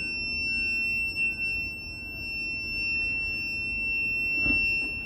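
CAT CJ1000DXT jump-starter power station sounding a steady, high-pitched electronic beep tone that does not stop, with fainter, lower pips about twice a second alongside it. It keeps beeping after charging, even with the charger disconnected, and cannot be shut off.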